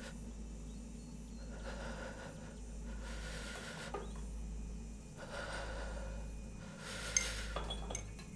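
A woman breathing heavily and raggedly, about four long drawn breaths in and out, roughly one every second and a half, over a low steady hum. A few small sharp clicks come near the end.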